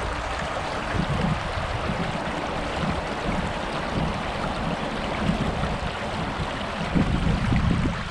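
Steady rushing of a small, shallow trout stream, with irregular low rumbles and buffets on the microphone that are strongest near the end.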